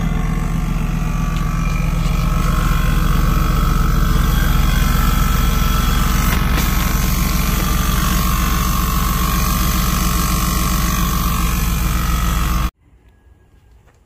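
Loud, steady motor drone with a low hum, from the 2003 GMC Yukon Denali; it cuts off abruptly near the end.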